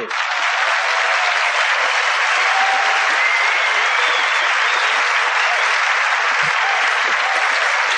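Audience applauding steadily, greeting a comedian as he comes up to the podium.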